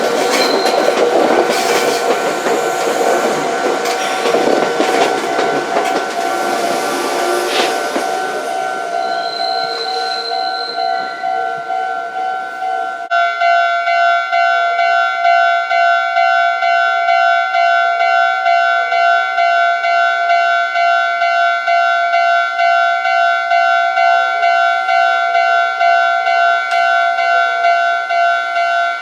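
Japanese level crossing warning bell ringing its repeated electronic clang while a Meitetsu train rattles over the crossing. About halfway through, the train noise drops away abruptly and the bell rings on alone.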